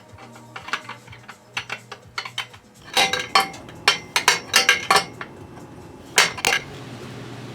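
Metal tools and exhaust hardware clinking and clattering in irregular sharp knocks, some with a short metallic ring, over a low steady hum.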